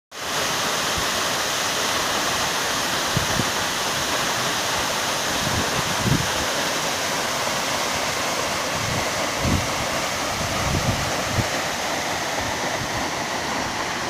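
Dalfazer waterfall, a tall cascade pouring down a rock face, rushing in a steady, dense roar of falling water, with a few brief low thumps.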